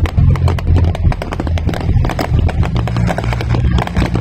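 Fireworks bursting: a dense run of cracks and crackles over a heavy, continuous low rumble.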